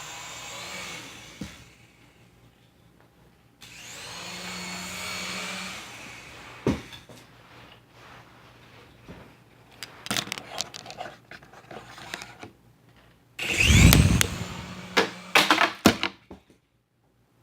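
Small electric motor of a toy remote-control helicopter whining as its rotors spin up, twice, with scattered knocks and a loud clatter about fourteen seconds in.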